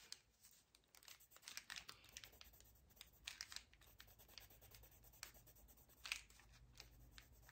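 Faint scratching of a coloured drawing pencil being stroked back and forth across sketchbook paper, in quick irregular strokes.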